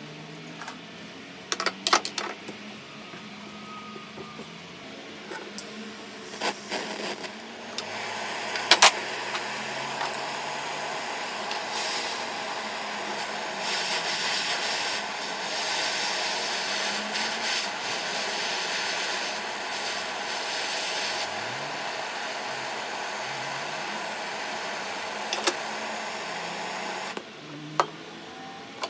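Handheld butane torch burning with a steady hiss while heating an old iron clamp held in locking pliers; the flame comes on about eight seconds in, strengthens for a while in the middle, and cuts off suddenly near the end. A few sharp metal knocks and clicks come before it is lit.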